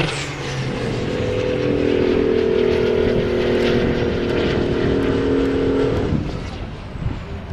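Diesel engine of a semi-truck tractor with straight exhaust stacks running hard as it pulls a trailer down the track. The engine holds a steady drone, then fades away after about six seconds.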